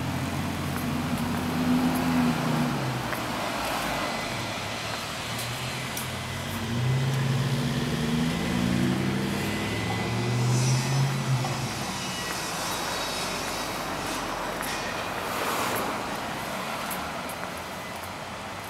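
Motor vehicle engine moving along the street, its pitch rising and falling. It is heard briefly near the start, then louder from about six to eleven seconds in, over steady traffic noise.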